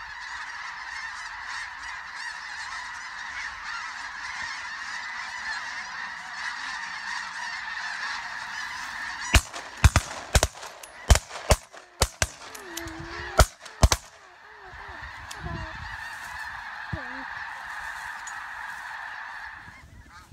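A large flock of snow geese calling overhead in a dense, continuous chorus of honks. About nine seconds in, a rapid volley of roughly ten shotgun shots rings out over about five seconds, then the goose chorus picks up again.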